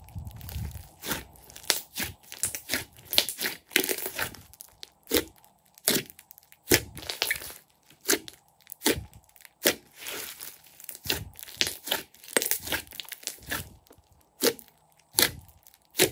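Hands squeezing and kneading a large mass of thick slime: wet squelches broken by many sharp pops and clicks, irregular at about one to three a second, as trapped air bursts from the slime.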